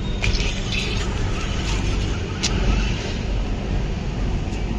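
Steady rumble of busy road traffic, with a few sharp clicks, one near the start and one about halfway through.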